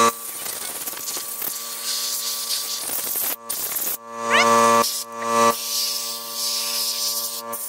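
Compressed-air blow gun hissing as it blasts dust out of a motorcycle cylinder, the air cutting off briefly a couple of times. A loud buzzing tone sounds right at the start and again from about four to five and a half seconds in.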